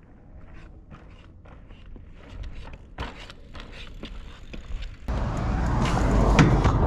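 A mountain bike rolling past over loose rocky ground: faint tyre crunch and scattered small clicks. About five seconds in the sound jumps to a much louder rushing noise with knocks, handling noise close to the microphone.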